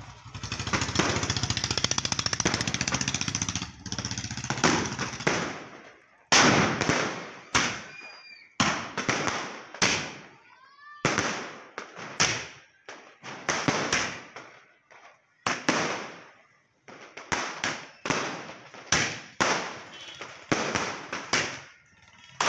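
Multi-shot aerial firework cake (sky shot) firing: a dense crackling rush for the first few seconds, then a long run of sharp bangs about two a second as the shells burst overhead.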